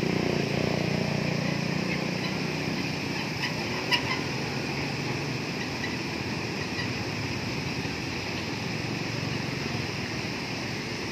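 Steady rush of water pouring over a low concrete weir and churning over rocks below it. Faint bird calls sound over it, and a single sharp click comes about four seconds in.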